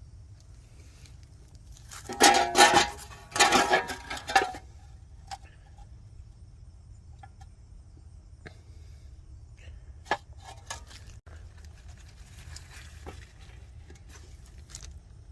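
Metal clattering with a ringing tone for about two seconds, starting about two seconds in, then a few faint scattered clicks and one sharper click near the ten-second mark, over a low steady hum.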